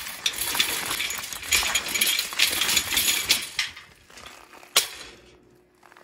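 A garden wagon pulled over pea gravel, its wheels crunching and clinking over the stones, mixed with footsteps on the gravel. The crunching fades out about four seconds in as the wagon stops, with one sharp click shortly after.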